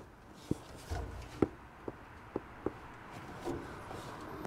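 A few faint, sharp taps and rubbing sounds, about half a second apart over the first three seconds, then a brief low hum.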